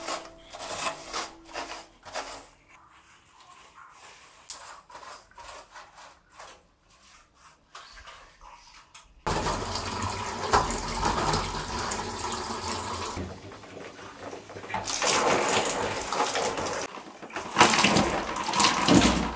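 Soapy sponge scrubbing a galvanized light-steel dish rack in short strokes, then about nine seconds in, water poured from a hand dipper splashes over the metal rack, coming in several louder pours toward the end.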